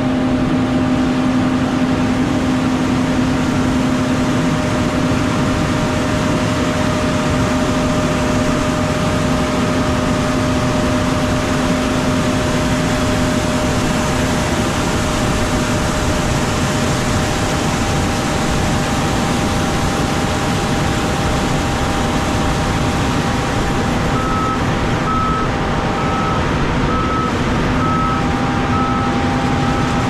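Steady mechanical hum with several fixed tones, unchanging in pitch and level. About 24 seconds in, a regular beeping alarm starts, like a vehicle's backup beeper, about one beep a second.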